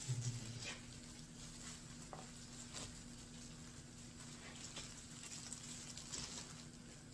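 Faint scattered clicks and light taps over a steady low hum.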